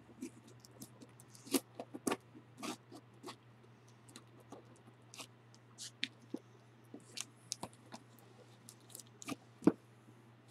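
Scissors snipping and packing tape being peeled off a cardboard box: irregular crackles, clicks and scrapes, with one sharp snap near the end.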